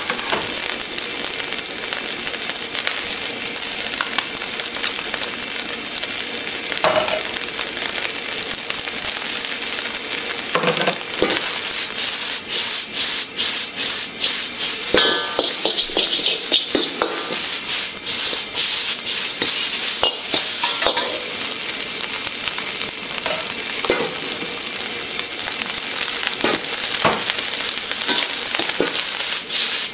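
Rice frying in a wok over a gas burner: a steady sizzle, with a metal ladle scraping and knocking against the wok as the rice is tossed and stirred, the clicks coming thick in the middle.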